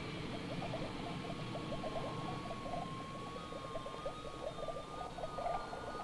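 Electronic soundtrack effects: a rapid, irregular patter of short blips, with thin held tones that come in about a second in and step up in pitch twice.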